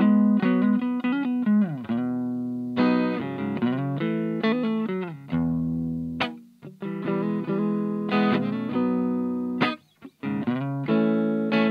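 Strat-style electric guitar played through a Little Rebel 2-watt amp kit into a Jensen CR8 speaker in an old Sunn cabinet: strummed chords and picked notes, each left to ring and fade, with a brief break about ten seconds in.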